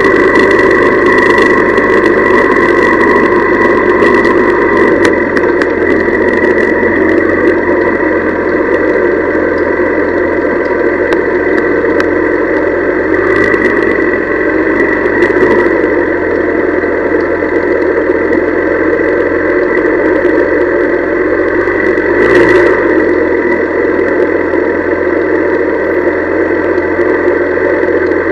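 A Honda CL175's small air-cooled parallel-twin engine running steadily, with a brief louder moment about 22 seconds in.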